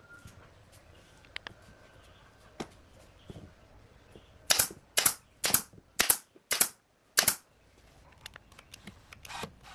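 Pneumatic brad nailer firing six times in quick succession, about half a second apart, driving nails through the bent wooden ring into a table leg. A couple of fainter clicks come in the first few seconds.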